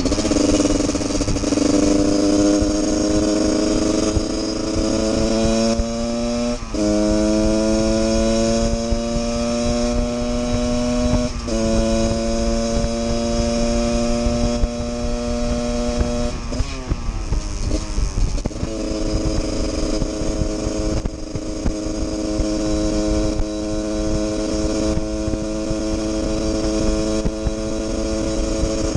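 Husqvarna 144 SMR supermoto's engine pulling under way: its pitch rises slowly, drops sharply at two gear changes about 7 and 11 seconds in, falls away as the throttle is eased around 17 seconds, then holds steady while cruising. Wind rushes on the microphone underneath.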